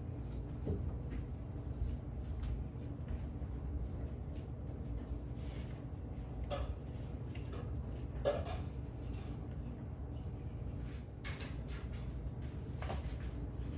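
Scattered light clicks and knocks, a few louder than the rest, over a steady low rumble.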